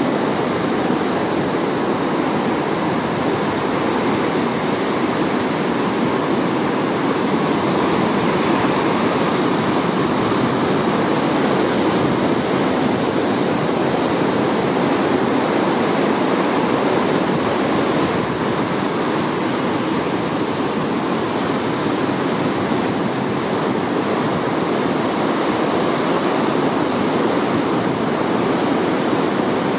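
Ocean surf: waves breaking and washing in, a steady rushing noise without pause.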